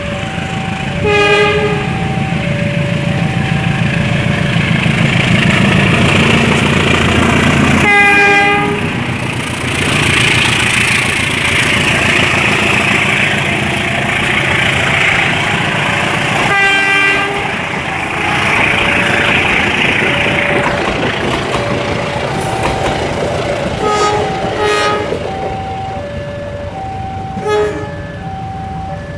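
A train passing close by, its horn sounding several short blasts while the carriages rumble past. Under it a warning signal alternates steadily between two notes, like a level-crossing alarm.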